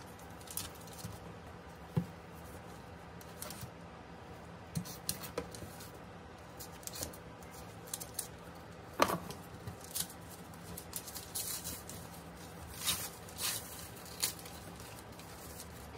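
Unboxing handling noise: intermittent rustling, small clicks and light knocks as gift items and wrapping are handled, with one sharper knock about nine seconds in.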